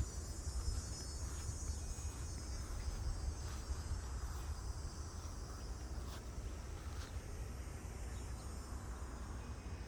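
Insects calling from the trees in a steady high-pitched chorus that thins slightly in the second half, over a constant low rumble.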